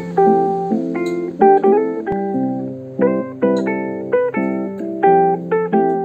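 Background music: a plucked guitar playing a light melody of short picked notes that ring and fade, several to the second.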